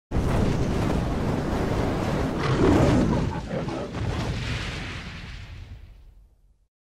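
Cinematic logo-reveal sound effect: a noisy, explosion-like swell that starts suddenly, peaks about three seconds in, then fades out slowly.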